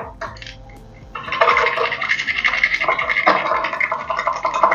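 Thin wire scraping rapidly back and forth inside the small fuel and air passages of a generator carburetor, metal rubbing on metal, to clear dirt out of them. The scrubbing starts about a second in and keeps up to the end.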